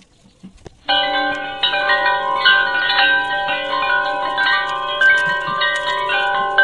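Background music of sustained chime-like tones starts suddenly about a second in, after faint scratching.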